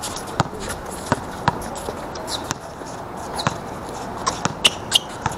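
A basketball bouncing on a hard outdoor court, with players' footsteps: a scatter of irregular thuds and a few short high squeaks.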